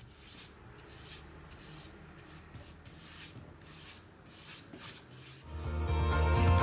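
Faint, scratchy swish of a paintbrush spreading sealer over decoupage tissue paper on a wooden crate, repeated about twice a second. Loud music comes in about five and a half seconds in and covers it.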